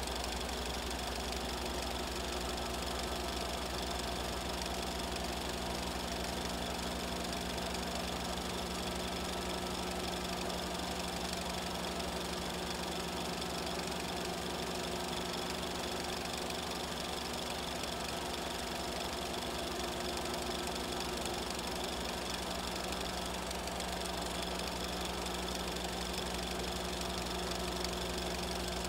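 Film projector running steadily, a sound effect laid over silent Super 8 footage.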